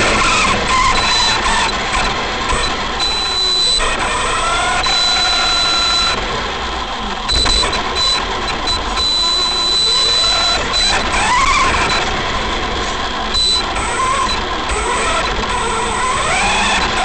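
Arrma Big Rock V3 RC monster truck heard from its own onboard camera: the electric motor and drivetrain whine rises and falls in pitch as the throttle is worked, over a steady rush of tyre and road noise.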